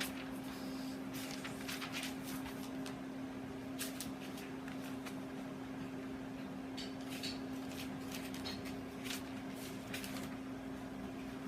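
Scissors cutting printer paper, with irregular short snips and paper rustles, over a steady low hum.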